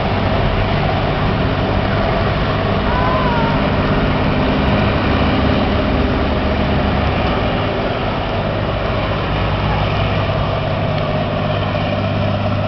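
Passenger hovercraft's engines and ducted propellers running steadily as it hovers and turns on the slipway: a loud, even drone with a low hum underneath.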